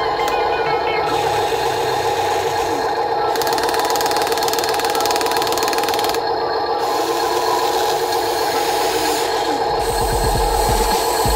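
A small electric motor running with a steady whine, as in a toy vehicle.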